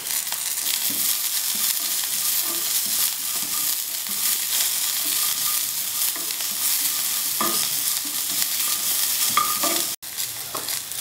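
Onions and green peas frying in hot oil with a steady sizzle, while a steel spoon stirs them and scrapes against the pan now and then. The sound cuts out for an instant near the end.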